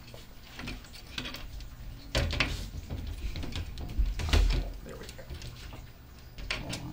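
Scattered clicks and knocks from the sliding glass doors and their fittings on a PVC reptile cage being handled while a small door handle is fitted, the loudest knock, with a low thud, about four seconds in.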